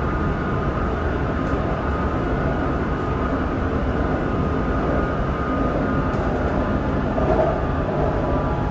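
BTS Skytrain train running along its track: a steady rumble with a faint, even high whine.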